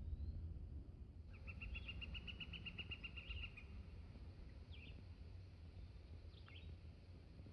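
A songbird singing a rapid trill of evenly repeated notes about two seconds long, followed by a few short chirps. A low rumble of wind or handling noise runs underneath.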